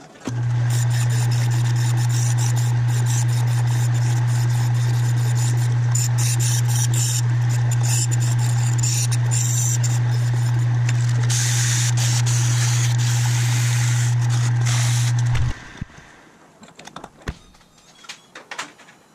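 Metal lathe switched on and running with a steady low hum, spinning a step-roll wheel while an abrasive is held against it to polish its edges, adding a scratchy hiss over the hum. The lathe cuts off about fifteen seconds in, leaving a few light clicks.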